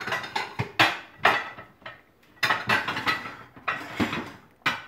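Dishes clattering and clinking against each other as they are taken out of a kitchen cabinet, a quick run of sharp knocks with short ringing tails.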